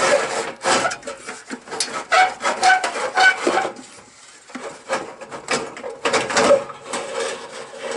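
Suburban SF-30 RV furnace's metal casing scraping and knocking against its sheet-metal compartment as it is wiggled and slid out, in irregular scrapes with a few short squeaks around the middle and a brief lull about four seconds in.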